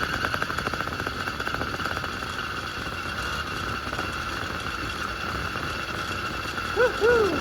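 Phantom 85 two-stroke bicycle engine running, with a fast pulsing beat for about the first second that evens into a steady drone. Two short chirps sound near the end.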